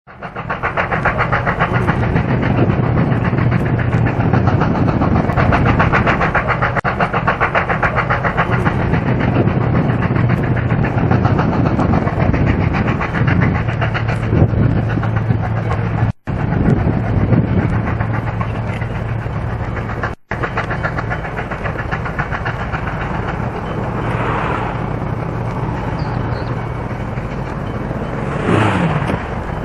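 Victorian Railways J-class steam locomotive J515 running with its train, a loud, fast, even rhythm throughout. The sound cuts out briefly twice, about 16 and 20 seconds in.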